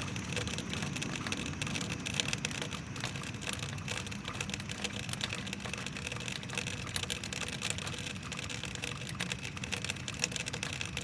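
Rainwater running off a roof, making a rapid, irregular clacking over a steady rain hiss.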